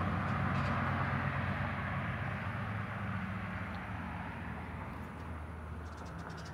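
A road vehicle's engine and tyres fading steadily as it drives away along the street.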